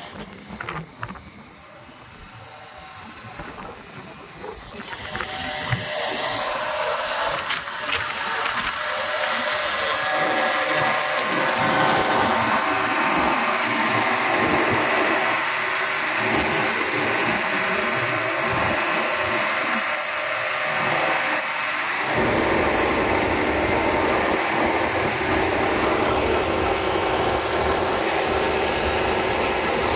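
250 kVA diesel generator set with a Cummins Big Cam engine running with a steady drone. It grows louder over the first ten seconds, and a deeper low rumble comes in about two-thirds of the way through.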